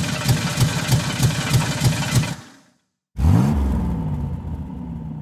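Car engine start: the starter cranks in even pulses about three a second, then stops. About three seconds in the engine fires with a rev that rises and falls back, settling into a steady idle that fades away.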